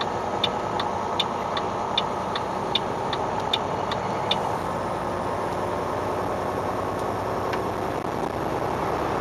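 Steady diesel engine and road noise inside a Mack CXU613 semi truck's cab, with the turn signal clicking about two to three times a second for the first four seconds or so, then stopping as the truck merges.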